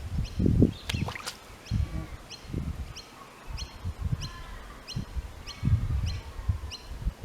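A bird repeats a short, high, falling chirp about twice a second. Under it run irregular low thuds and rumbles, with two sharp clicks about a second in.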